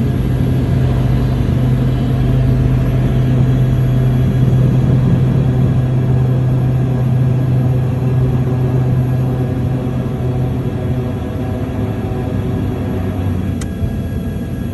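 Twin turboprop engines of a Turbo Commander 1000 heard from inside the cockpit during the landing roll: a loud, steady drone with a strong low hum that fades about eleven seconds in as the plane slows. A single sharp click comes near the end.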